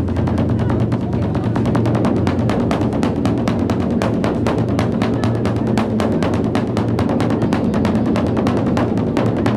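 A very large drum beaten with sticks in a fast, steady roll of about nine strokes a second, the strokes merging into a continuous low ring.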